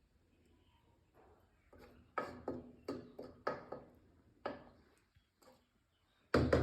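A spoon knocking and scraping against a cooking pot, about five short strokes in a row, as rice is spread into the pot in layers.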